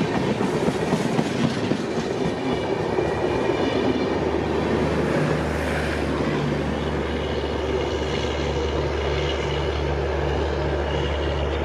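Train running on rails, its wheels clattering over the track. From about four seconds in, a steady low drone with a pulsing note above it joins the clatter.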